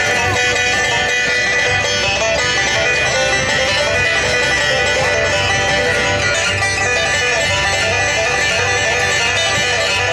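Upbeat bluegrass-style music with banjo and guitar playing steadily.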